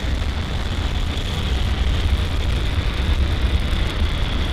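Rocket engine exhaust at launch: a loud, steady rumble, heavy in the deep bass, with a crackling hiss above it.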